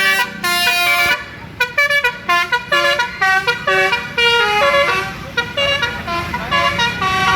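Bus 'telolet' musical horn (Basuri type) playing a fast melody of short, loud horn notes that step up and down in pitch, several notes a second.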